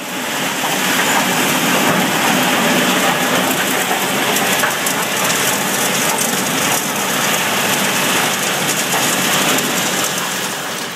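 Fine shredded material pouring off the end of a Bunting Neo high-intensity magnetic conveyor and showering onto a sheet-metal splitter chute: a dense, steady hiss of countless small particles striking metal, like heavy rain.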